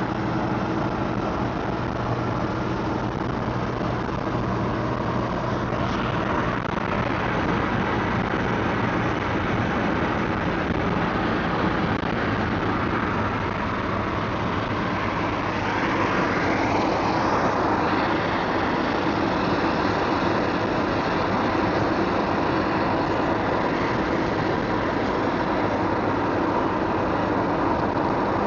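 Car driving: steady road and engine noise heard from inside the cabin, growing a little louder about halfway through.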